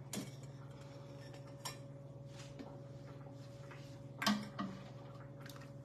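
A metal ladle knocking a few times against a stockpot and glass canning jars while salsa is ladled out, the loudest knock about four seconds in, over a steady low hum.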